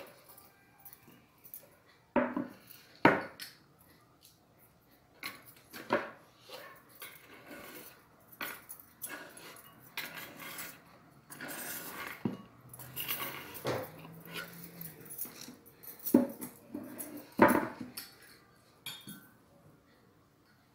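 Irregular knocks and clinks of kitchen work: chopped onion handled on a wooden cutting board and dropped into a glass blender jar, with several sharp knocks standing out.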